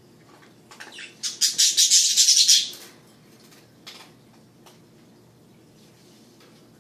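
Pet parakeets chirping: a loud burst of rapid, high chattering chirps lasting about a second and a half, starting about a second in, followed by a couple of faint single chirps.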